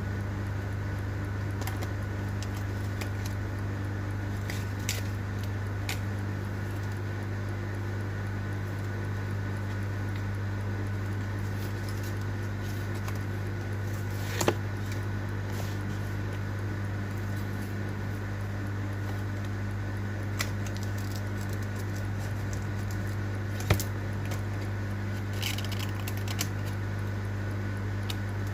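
A steady low electrical hum, with scattered sharp clicks and taps of small hand tools on a phone being repaired, the two loudest about halfway through and near the end.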